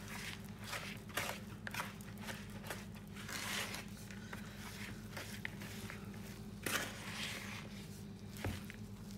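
Wooden spoon stirring and scraping stiff fruit dough in a mixing bowl: irregular scrapes and knocks of the spoon against the bowl, with one louder knock about two-thirds of the way through, over a low steady hum.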